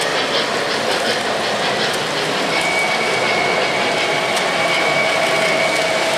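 O-gauge three-rail model trains rolling along the track: a steady running rumble of wheels and motors, with a steady high whine coming in about two and a half seconds in as a model diesel locomotive approaches and passes.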